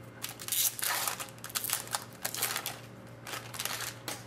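Trading cards and foil pack wrappers being handled: a few clusters of quick rustling and sliding scrapes with sharp crinkles, as cards are pulled from a pack and flipped through.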